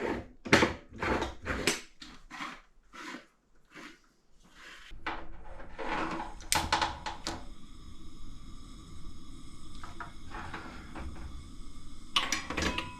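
Metal clicks and knocks as an aluminium Moka Express coffee pot is handled and screwed together, then, about five seconds in, a steady hiss with a low rumble begins, like a gas camp-stove burner lit under the pot.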